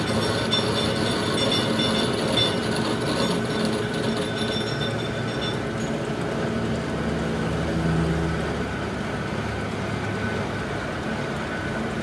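Steady machine noise with metallic ringing tones in the first half that fade out about halfway through, and a low hum that swells briefly near two-thirds of the way in.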